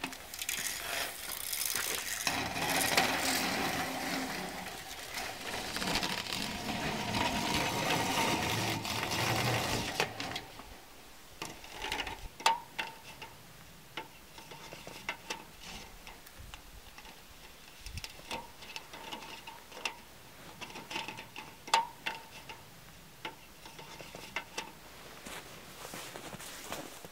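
Flexible aluminium chimney duct being handled: a loud crinkling, rustling noise for about the first ten seconds. After that the sound drops to scattered clicks and taps as the pipe is fitted against the cabin wall.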